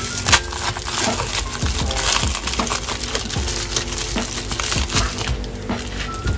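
Black plastic bubble mailer being handled and pressed flat by hand, its plastic crinkling and crackling in quick irregular clicks.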